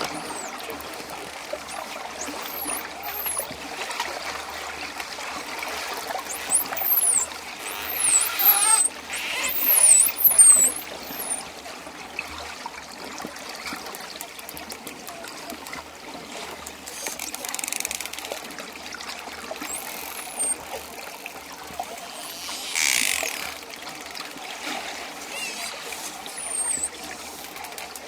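Dolphin whistles: short, very high falling whistles, coming in clusters, over a steady wash of splashing water that swells louder a few times.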